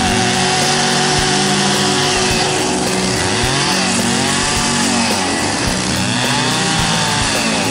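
Two-stroke chainsaw running at high revs, its pitch swelling up and dropping back twice in the second half.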